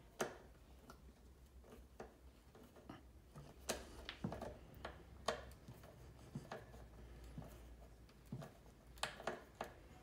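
Wooden spice rack parts being handled and fitted together by hand: scattered light clicks and taps of wood and a screw, the loudest about four seconds in and again near the end.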